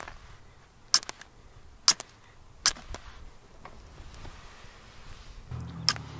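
Titanium fire striker scraped sharply down a hand-held stone to throw sparks onto tinder: four quick strikes about a second apart, then another near the end.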